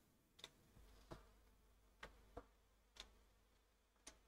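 Six faint, scattered clicks of a computer mouse and keyboard, spaced unevenly, half a second to a second apart.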